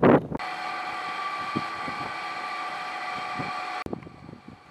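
Wind buffeting the microphone, then a steady machine hum with several fixed pitched tones that cuts off suddenly near the end, leaving faint clicks.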